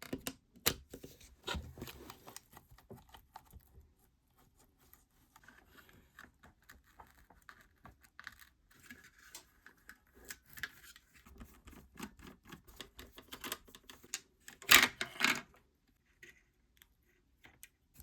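Irregular clicks, taps and scrapes of a Panasonic cordless stick vacuum's plastic housing and parts being handled and taken apart, with a louder burst of clatter about fifteen seconds in.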